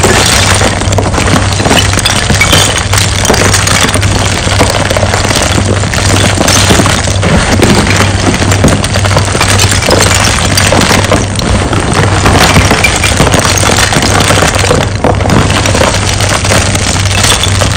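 Hands scooping and sifting chunks of hard crushed gym chalk, the pieces tumbling onto each other in a dense, continuous crunching with glassy clinks.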